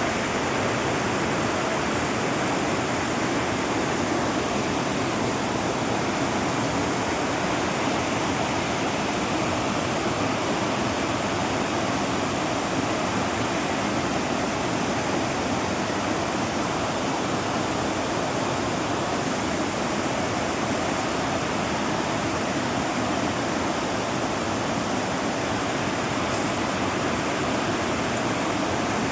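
Waterfall in monsoon flow: a steady, unbroken rush of falling water.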